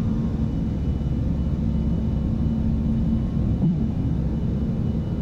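Steady rumble on the flight deck of a KC-135 tanker climbing after takeoff, with the noise of airflow and engines and a faint steady hum.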